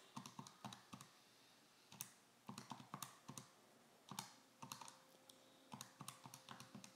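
Faint, irregular key taps: numbers being punched into a calculator, about a dozen and a half presses.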